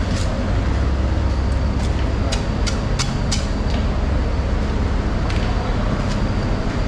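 Steady low rumble of fish-market background noise, with a scatter of sharp ticks and clicks, most of them bunched together in the middle.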